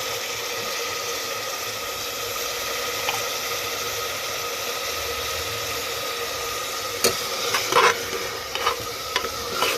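Soybean keema and potatoes frying in a pan with a steady sizzle. In the last three seconds a spoon knocks and scrapes against the pan several times as it is stirred.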